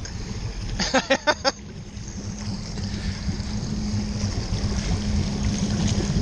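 Motorboat engine running with a steady low hum over wind and water noise, getting louder as the boat takes up the slack in the tow rope. A short burst of voice about a second in.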